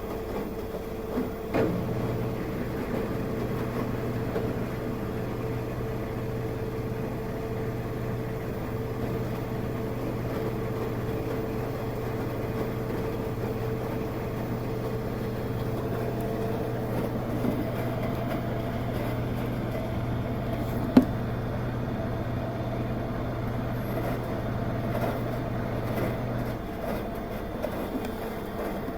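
Washing machine running in its wash cycle, its motor giving a steady low hum that starts a second or two in and stops near the end, with one sharp click about 21 seconds in.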